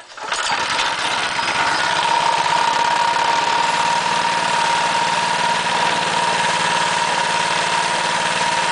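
Greyhound 6.5 hp Lifan GX200-clone single-cylinder four-stroke engine catching on the recoil pull right at the start and then running steadily, with a steady whine over the engine note. It is running with the choke open, a setting in which this engine won't keep running.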